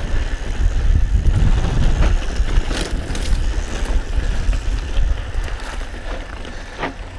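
Mountain bike descending a dirt singletrack: wind rumbling heavily on the mic and knobby tyres rolling over loose dirt, with a few sharp clacks and rattles of the bike over bumps. It gets quieter toward the end as the bike slows.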